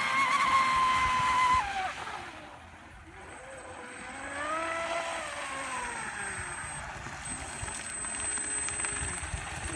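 Electric RC speed boat on a 6S battery running at speed: a high motor whine held at full throttle cuts off abruptly just under two seconds in. A second, quieter whine rises and falls in pitch about four to six seconds in, like a pass, then fades.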